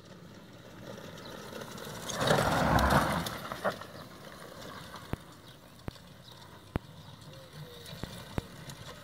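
Pedal-powered four-wheel quad kart rolling across a grass lawn: a loud rushing rattle as it passes close about two seconds in, then fainter rolling noise broken by a few single sharp clicks.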